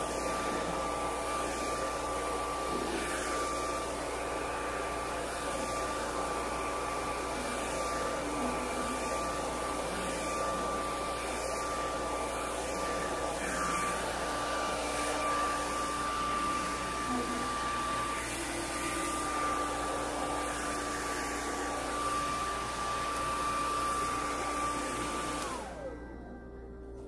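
Handheld hair dryer blowing steadily, with a high steady motor whine over the rush of air. Near the end it is switched off: the whine falls in pitch as the motor spins down and the airflow stops.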